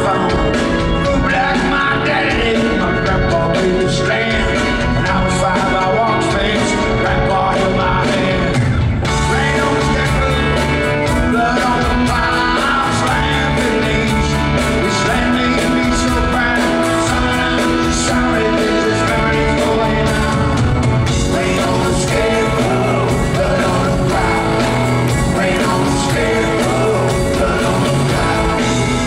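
Live rock band playing: a male lead singer over a Telecaster-style electric guitar and a drum kit with a steady beat. The cymbals come in brighter about a third of the way through.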